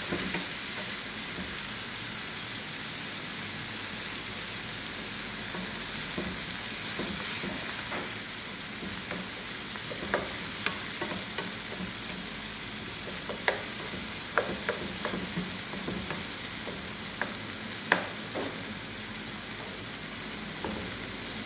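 Chicken hearts sizzling steadily in oil in a non-stick frying pan on a turned-down gas flame. A wooden spoon stirs them, knocking sharply against the pan a dozen or so times in the second half.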